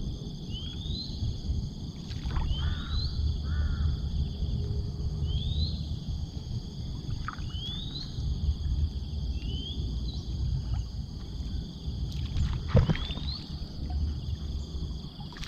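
Outdoor ambience: a short rising chirp repeats every second or two over a steady high insect drone and a low rumble, with a few sharp clicks.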